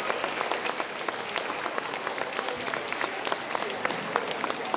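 Audience applauding: many hands clapping in a dense patter, easing off slightly toward the end.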